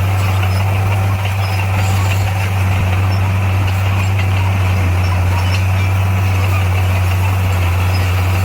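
Diesel engine of an SDLG motor grader running steadily with an even, low drone.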